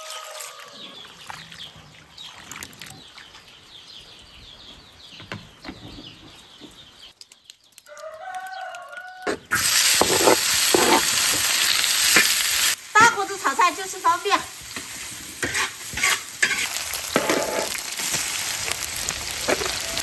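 For the first half, quiet splashing and handling of bamboo shoots being rinsed by hand in a bowl of water. About halfway through, a loud sizzle starts suddenly as diced fatty pork hits a hot iron wok, and it keeps frying and spitting in its rendering fat. A rooster crows twice.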